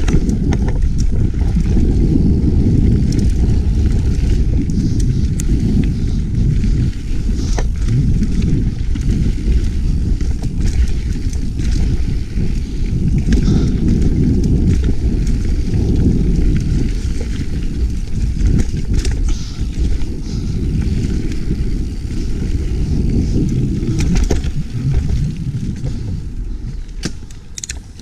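Mountain bike riding down forest singletrack: a steady low rumble of riding noise with frequent sharp clicks and rattles from the bike over the rough ground. It gets somewhat quieter near the end.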